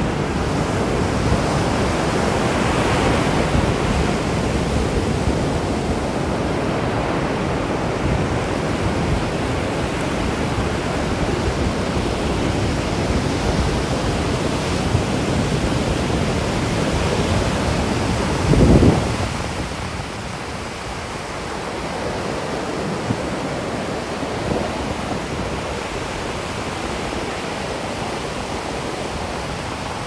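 Sea surf breaking and washing up a sandy beach, a steady rushing wash of noise. About two-thirds of the way in a brief low buffet hits the microphone, and the wash is a little quieter after it.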